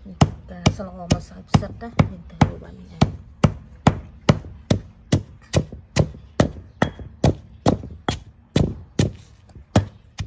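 Pestle pounding rice grains and green herbs in a stone mortar, a steady rhythm of sharp strikes about two and a half times a second.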